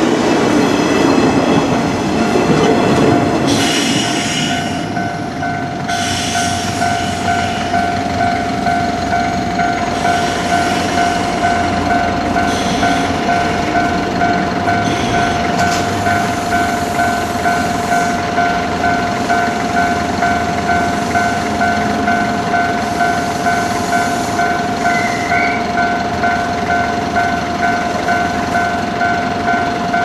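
A green JR West 201-series electric train runs past the crossing for the first few seconds, its wheels clattering over the rails. Then the crossing's electronic warning bell rings on steadily in an even, repeating pattern.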